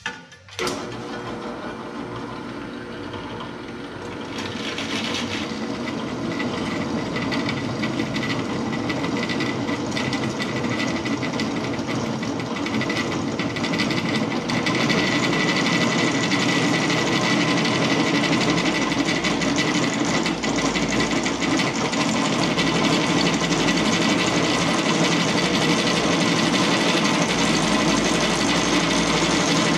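Floor-standing drill press running, its motor starting about half a second in, with the twist bit cutting into a flat steel bar held on the table. The steady whir grows louder around four seconds in and again around fourteen seconds in.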